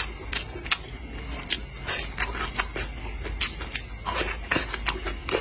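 Close-miked chewing of crisp cooked vegetables and greens: irregular crunches and wet mouth clicks, several a second.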